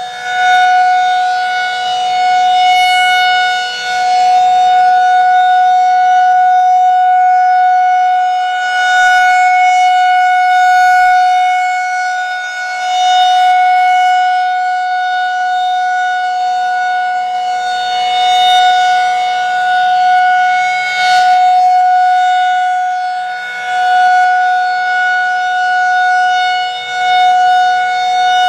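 Federal Signal 2001-SRNB rotating electromechanical warning siren sounding a steady tone in its scheduled test, its loudness swelling and fading every few seconds as the horn sweeps around.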